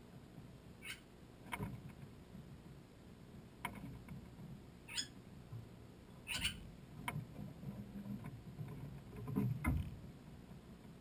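Bali starlings giving short, harsh calls, about half a dozen spaced a second or more apart, some with a wavering pitch. A low rumbling thump late on is the loudest sound.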